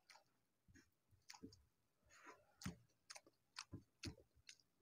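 Faint eating sounds of rice and dal eaten by hand from a steel plate: an irregular string of short, soft clicks and smacks.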